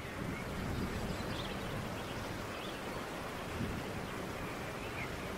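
Steady outdoor rural ambience: an even rushing hiss and rumble like wind, with a few faint high chirps.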